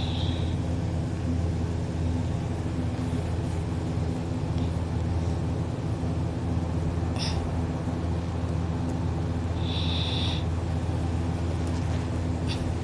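A steady low droning hum with several even tones, unchanging throughout, with a brief high-pitched squeak at the very start and another about ten seconds in.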